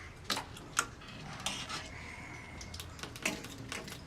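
Dishes and cutlery clinking: a handful of sharp clatters, with quieter handling in between.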